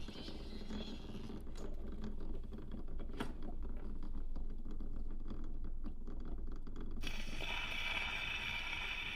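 Vinyl record surface noise on a turntable: a low hum with scattered crackles and clicks, and a brighter hiss that comes in about seven seconds in.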